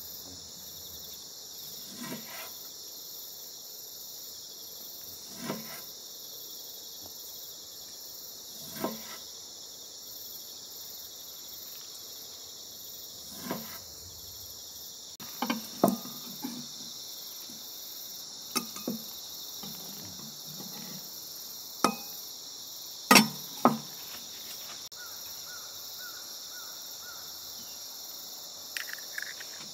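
A kitchen knife slicing raw fish on a wooden cutting board, a soft stroke every three seconds or so, over a steady chorus of insects. In the second half come sharper knocks and clicks, the loudest about two thirds of the way in.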